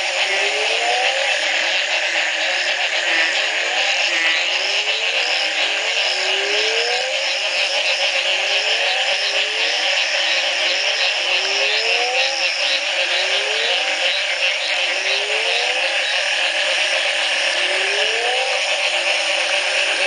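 Dense chorus of many frogs and toads calling at once after the first rain following a three-month drought: a steady loud buzzing trill overlaid by short rising calls, about one a second.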